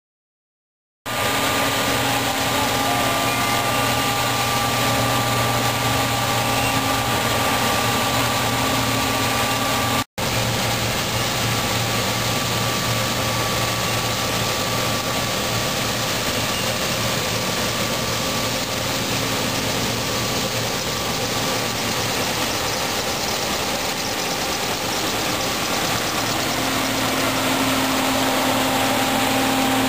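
John Deere C670 Hillmaster combine harvesting rapeseed: the steady drone of its engine and threshing machinery, with several steady whining tones over a low hum. It starts about a second in, cuts out for a moment about ten seconds in, and a low hum grows louder near the end as the combine comes close.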